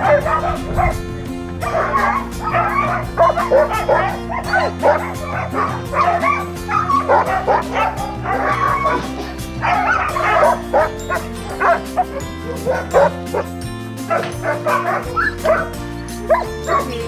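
A yard full of sled dogs barking and yipping in an excited, overlapping chorus, worked up before a run, over background music.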